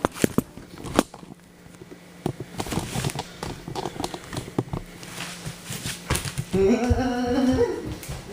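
Sharp plastic clicks and clatter from a VHS cassette being handled, then music from the tape's playback starts near the end.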